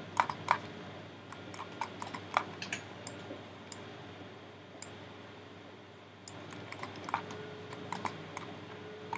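Computer keyboard and mouse clicks, a quick irregular run of taps that thins out for a few seconds midway and then picks up again.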